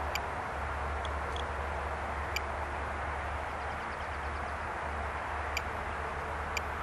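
Steady outdoor background noise with a low hum underneath, broken by a few brief, high-pitched ticks.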